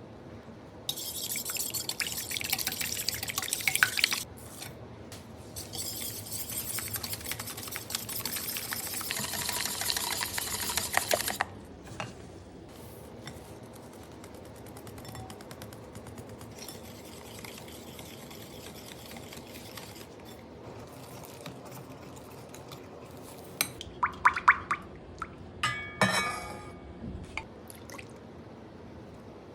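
Liquid pouring in two stretches of steady hiss, then a few light clinks near the end.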